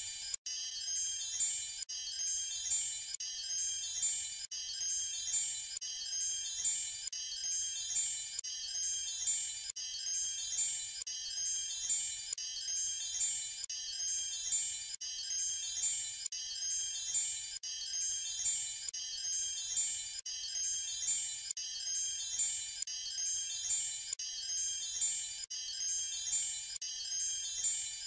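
Tinkling chime background music: a steady, unbroken run of high bell-like notes with almost no bass.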